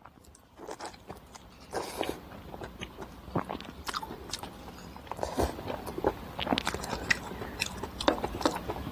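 Close-miked eating: a person biting and chewing food, with many irregular crisp crunches and wet clicks that grow busier a couple of seconds in.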